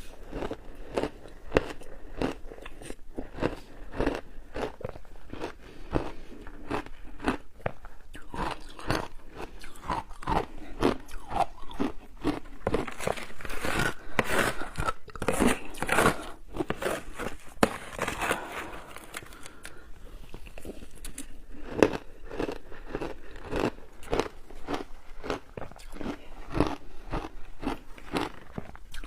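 Shaved ice being bitten and chewed with a continuous run of crunching and crackling. The crunching is thickest around the middle.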